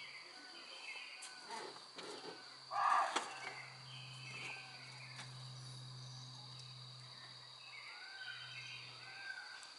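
Forest ambience: a steady high insect drone with scattered short bird chirps and a low steady hum. A few sharp clicks, and a brief louder sound about three seconds in.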